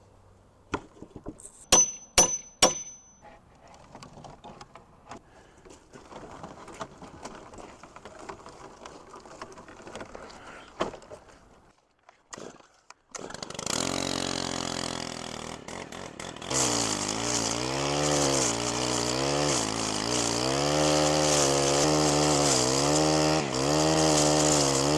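A few knocks and three sharp ringing metal clinks, then, about halfway through, a corded reciprocating saw with a wood-with-nails blade starts up. It cuts through fence wood, its pitch wavering as it bogs and frees under load.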